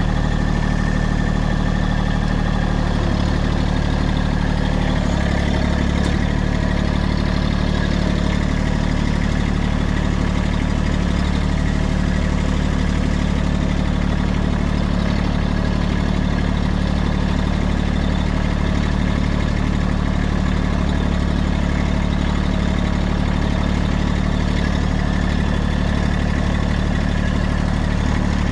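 Massey Ferguson tractor's diesel engine running steadily, with a slight change in its low pitch about five seconds in.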